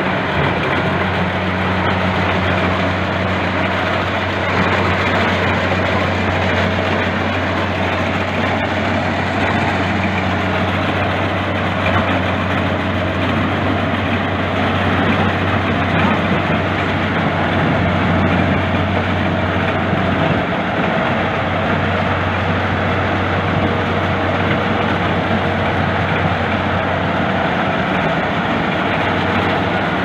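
Tracked corn combine harvester running steadily, its engine holding an even low hum throughout.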